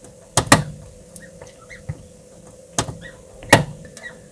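Microphone pressed against a pipped duck egg in an incubator, picking up the duckling inside close to hatching. There are a few sharp knocks and clicks, four in all, and faint short high peeps between them, over the incubator's steady hum.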